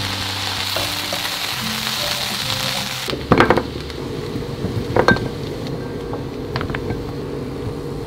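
Diced potatoes and walnuts sizzling with miso in a frying pan as tongs stir them. The sizzle stops abruptly about three seconds in, followed by a few sharp clinks of a spatula against a glass container as the potatoes are spooned in, over soft background music.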